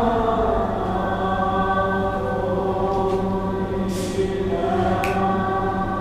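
Eerie choir-like chanting from a haunted-house attraction's soundtrack, voices held on long sustained notes, with a few faint ticks in the second half.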